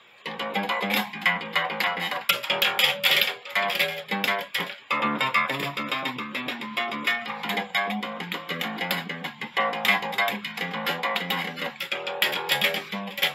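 Electric bass guitar played solo in quick runs of plucked notes, with a brief break about five seconds in.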